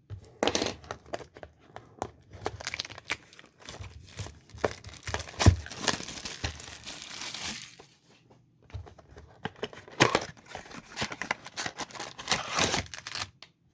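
Plastic wrapping being torn and crinkled off a blaster box of trading cards, in bursts of rustling with one long steady tear about halfway through, a short pause, then more crackling.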